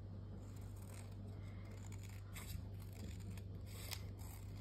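Scissors cutting a strip of patterned paper, a run of faint snips in the second half, over a steady low hum.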